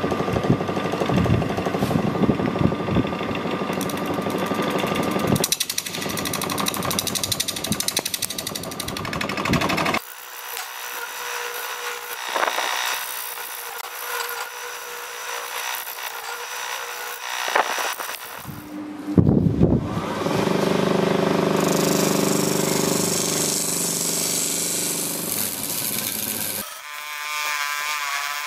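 Wood lathe spinning a blue epoxy-resin and jarrah bowl blank while a turning tool cuts into it: a loud, rough scraping and chattering as shavings come off. The sound changes abruptly several times.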